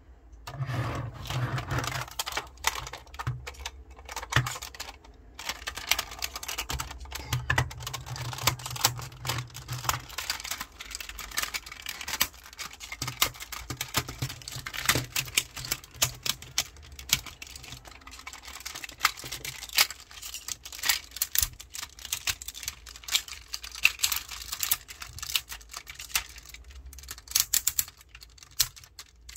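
Hard plastic parts of a Tobot transforming toy car clicking and clacking as they are twisted, folded and snapped into robot form: a dense, irregular run of small sharp clicks, several a second.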